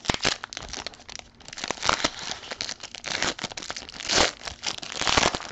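Clear plastic wrapper of a football trading-card pack crinkling in irregular bursts of crackles as it is handled and opened by hand.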